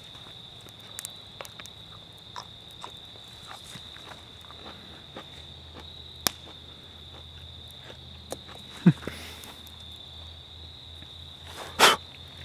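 Insects trilling in an evening chorus, a steady high-pitched note throughout. Scattered small clicks and knocks from handling, a thump about nine seconds in, and a louder short rustle near the end.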